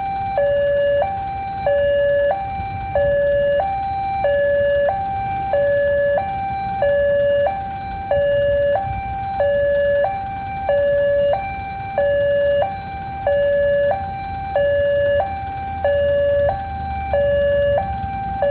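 Level-crossing warning siren sounding a steady two-tone hi-lo wail, with a cycle a little over a second, over a low rumble. It is the alarm that warns road users that a train is approaching the crossing.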